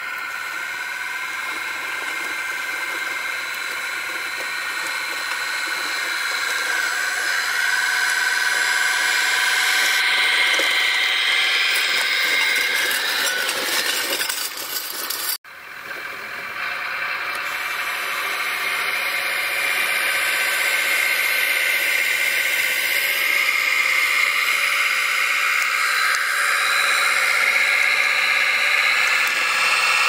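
RC model Schlüter 1250 VL tractor running, its Benedini sound module playing a diesel tractor engine through a small onboard speaker, mixed with the model's drive gearing. The engine sound grows louder as the tractor comes closer, cuts out for an instant about halfway, then builds again.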